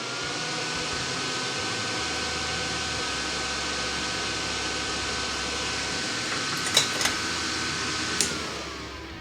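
A small electric motor whirring: it spins up, runs at a steady pitch, then winds down near the end. A few sharp clicks come near the end.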